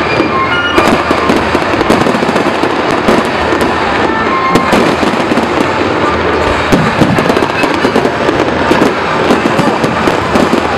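Fireworks going off in a dense, continuous barrage of cracks and bangs, many shells bursting every second with no let-up.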